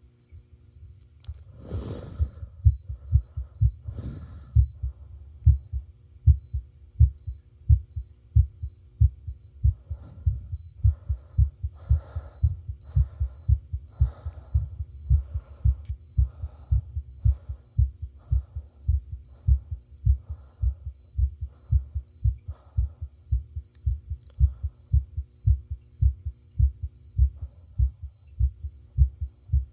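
Amplified human heartbeat: regular low thumps, a little over one beat a second, over a faint steady hum, with two brief rustling noises near the start.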